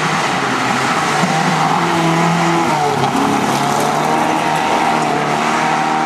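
Rally car engine running hard at high revs as the car drives past at speed on a stage, its pitch rising and falling with the throttle.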